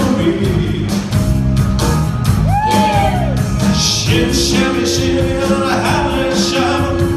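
Live rock and roll band playing with a male singer. A note slides up and back down about two and a half seconds in, and a long steady note is held from about four seconds in.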